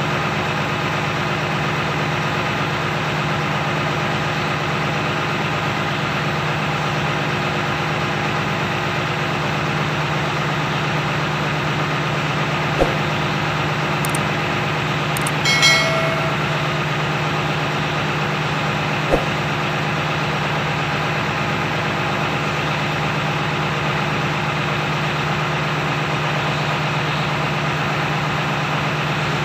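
Mercedes-Benz truck's six-cylinder diesel idling steadily. Two sharp clicks and a short high-pitched beep come through about halfway through.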